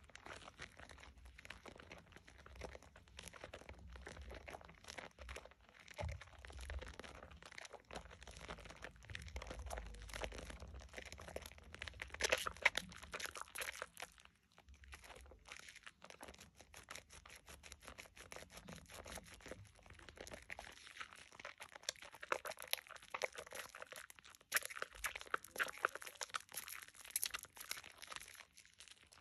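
Wet squishing and crackling of thick soap lather as hands squeeze and knead a bar of Dove shea butter soap in foamy water. The squelches come in rapid, irregular runs, loudest about halfway through and again in the last few seconds.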